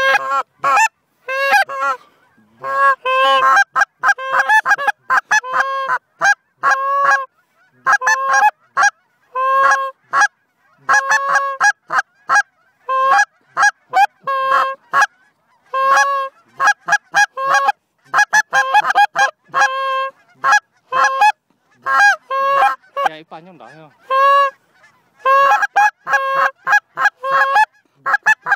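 Hand-blown Canada goose call sounding short, loud honks in quick runs with brief pauses, imitating honkers to draw a passing flock in.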